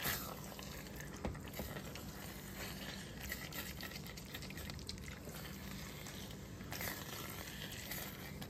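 Spatula stirring and scraping spaghetti through thick simmering tomato sauce in a frying pan, with a faint sizzle, working the pasta loose where it has begun to stick to the bottom of the pan.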